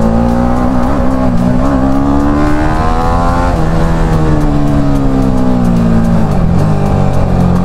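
Motorcycle engine accelerating, its pitch rising for about three and a half seconds, then falling slowly as the bike eases off, over steady wind noise.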